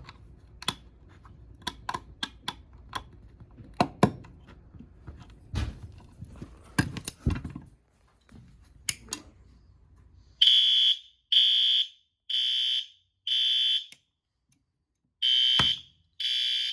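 Clicks and knocks of handling at first, then a fire alarm horn starts about ten seconds in as the system goes into alarm, sounding half-second blasts of a high tone about once a second, four in a row, a short pause, then more. A sharp knock cuts through near the end.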